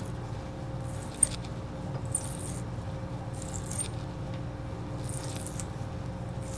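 Small brass nut being hand-tapped with a left-hand Acme tap: faint short squeaks and metal clicks as the tap cuts, several times, over a steady low hum.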